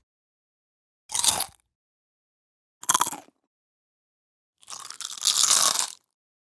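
Three separate crunchy bites into crisp food, each a short crunch cut off to silence; the third is longer, crunching for over a second.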